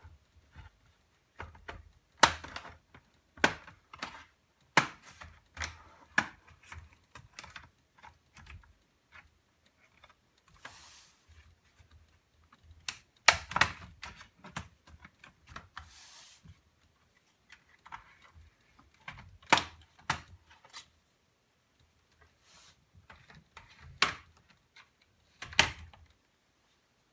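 Irregular sharp clicks and knocks from an Acer ES1-512 laptop's case and parts being handled during disassembly, with a couple of brief scraping sounds.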